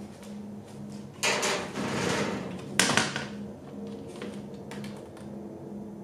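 Handling noise: a rustling scrape lasting about a second and a half, then a sharp click or knock about three seconds in, over a low steady hum.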